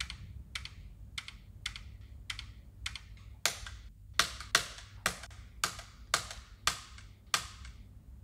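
Slow, evenly paced keystrokes on a backlit computer keyboard, one key at a time, about two a second. The clicks grow louder about halfway through and stop shortly before the end, over a low steady room hum.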